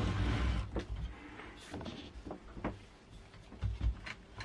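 Parts of an LCD monitor being handled and pulled apart by hand: a brief rustle, then scattered small clicks and knocks, with a sharper click near the end.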